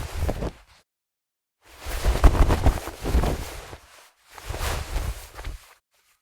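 Fabric rustling and swishing in separate bursts: one tailing off in the first second, a longer one of about two seconds, then a shorter one, each cut off into silence.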